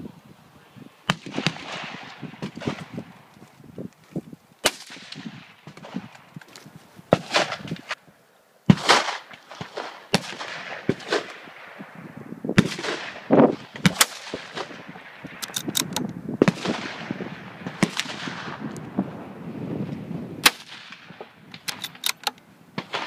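Gunfire on a busy outdoor shooting range: shots from several guns at irregular intervals, some close and loud with echoing tails, others fainter, with two quick runs of about four shots each, one a little past the middle and one near the end.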